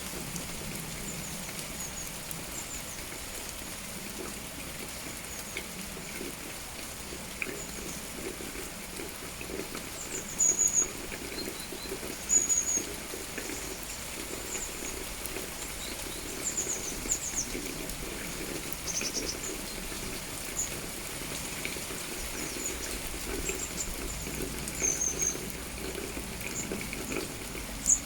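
Steady rain falling, with short, high bird chirps breaking in now and then, the loudest about ten and twelve seconds in.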